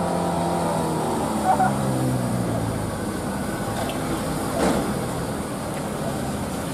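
Mitsubishi light box truck's diesel engine passing close by, its drone falling in pitch as it goes away, followed by the steady engine and road noise of a tour bus coming down the road, with one brief sharp sound about two-thirds through.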